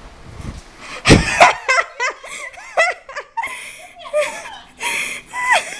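People laughing hard in repeated bursts, the loudest about a second in.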